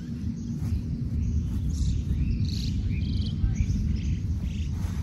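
Wind rumbling on the microphone, with birds chirping a few times in the middle.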